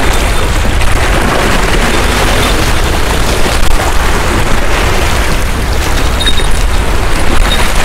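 Wind buffeting the microphone, a loud steady rumble, over small waves washing against the shore rocks.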